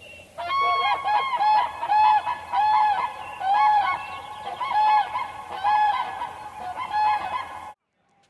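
Domestic geese honking, a run of repeated honks about two a second from more than one bird, cutting off suddenly near the end.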